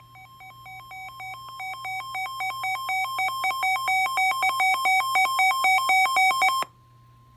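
Weather alert radio's alarm going off for a flash flood warning: rapid electronic beeping alternating between two pitches, about four beeps a second, growing steadily louder and cutting off suddenly about six and a half seconds in, leaving a faint steady tone.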